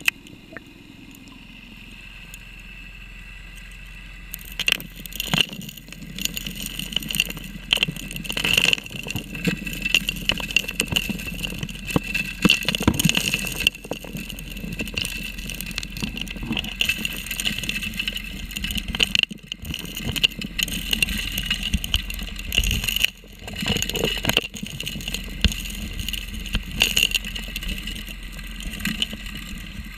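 Gravel and small stones clattering into the suction nozzle of a 3-inch gold dredge, heard underwater over the steady drone of the running dredge. The clattering starts about four seconds in, rattling irregularly, and briefly drops out twice later on.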